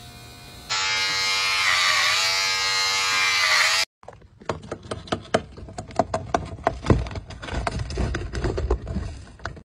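Electric hair clippers buzzing steadily for about three seconds, their pitch dipping briefly as they cut. Then, after a sudden stop, a rapid uneven run of knocks and clicks.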